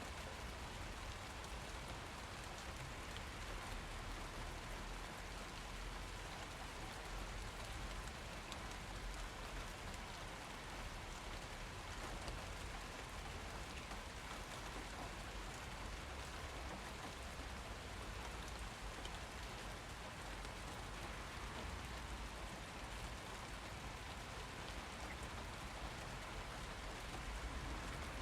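Steady rain falling, a dense even hiss of drops with fine patter of individual drops striking surfaces.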